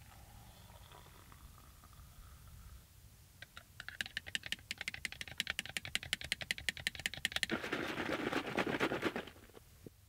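Hot water poured from a Jetboil stove cup into a ceramic mug: a quick run of clicks and splashes for a few seconds, then a louder steady pour that stops suddenly near the end.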